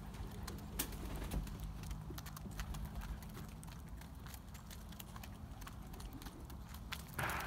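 Racing pigeons pecking seed from a wooden feeder trough: an irregular run of small sharp clicks as their beaks strike the grain and wood. Near the end a louder hiss comes in.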